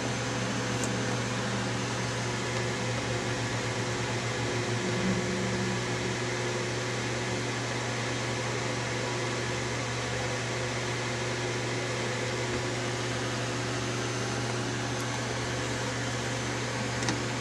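Steady low electrical hum under an even, fan-like hiss, with a faint tick about a second in.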